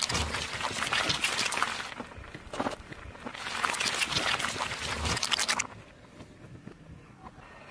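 Car tyre rolling over a block of gelatin jelly on asphalt, squashing it with a wet crackling squelch. It happens twice: in the first two seconds, and again from about three to five and a half seconds in.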